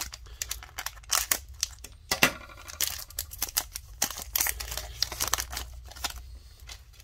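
Plastic wrapper of an Upper Deck hockey card pack crinkling and tearing as it is ripped open and the cards pulled out, a run of short, sharp rustles.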